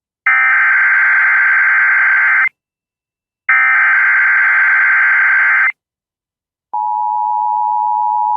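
Emergency Alert System SAME header data bursts: two harsh, buzzing digital bursts of a bit over two seconds each, about a second apart. About two-thirds of the way in, the steady two-tone EAS attention signal starts and holds, announcing a severe thunderstorm warning.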